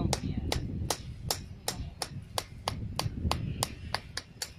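Small hammer striking the clamped mould of an exothermic grounding weld in quick, even sharp metallic taps, about three a second and a dozen or so in all.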